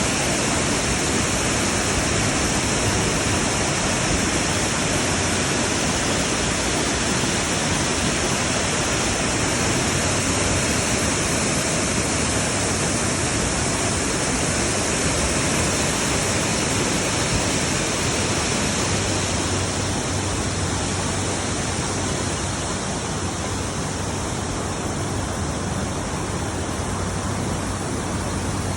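Stream water flowing in a steady, murmuring rush, a little softer in the last third.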